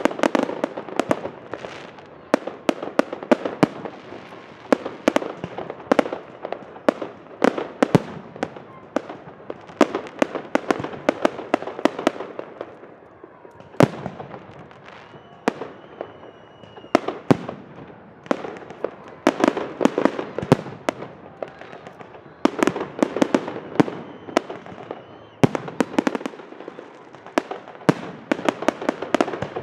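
Aerial fireworks display: rapid volleys of bangs and crackling from bursting shells. The volleys thin out to a few single bangs around the middle, then come thick again.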